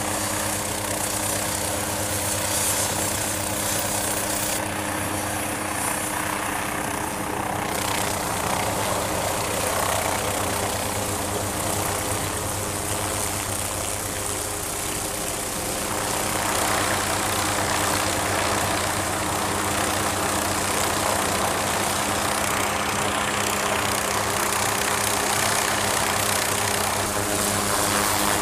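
MQ-8B Fire Scout unmanned helicopter's turboshaft engine and rotor running at flight power, a steady engine drone with a few level low tones over a broad rush of rotor wash and wind. It grows a little louder about halfway through as the helicopter lifts off and hovers.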